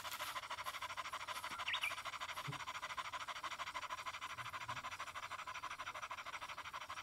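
Dog panting hard with its tongue out: fast, even breaths with no pause.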